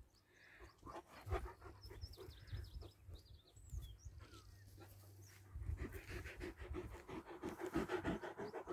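A dog panting close to the microphone, quick and rhythmic, getting louder and heavier from about halfway through.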